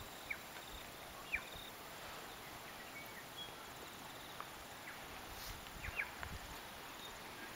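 Quiet outdoor ambience: a faint steady hiss, with a few short bird chirps that fall in pitch, two of them close together about six seconds in.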